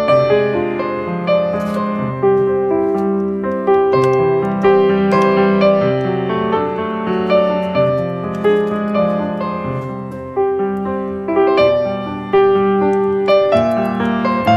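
Background music played on a piano: a slow melody of notes that each start sharply and fade away.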